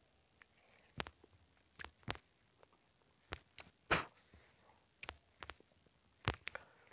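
A person chewing a ber (Indian jujube) fruit: a series of short, crisp crunches, the loudest about four seconds in.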